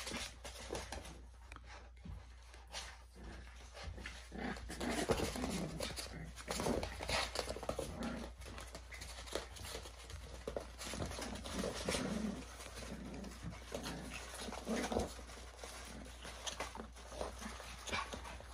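Seven-week-old miniature schnauzer puppies play-fighting, making short, scattered growls and whines.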